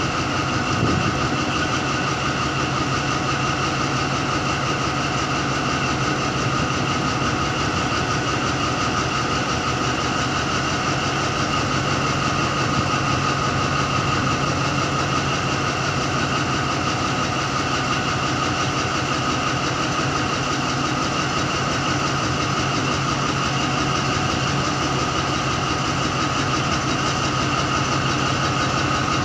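Caterpillar diesel engine of Alsthom locomotive 4103 idling steadily, a low engine rumble with a steady high whine over it.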